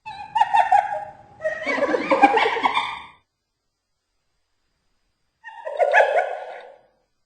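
Spotted hyena laughing: two stuttering, high-pitched giggle calls back to back, then after a silence of about two seconds one more shorter giggle.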